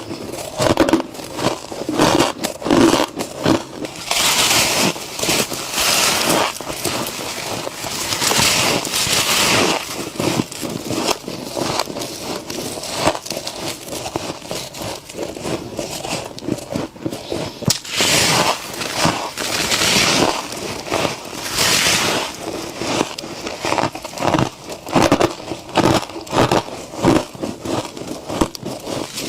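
Fluffy humidifier frost crunching and crackling as it is bitten and chewed, close up, with repeated stretches of scraping that last a second or two.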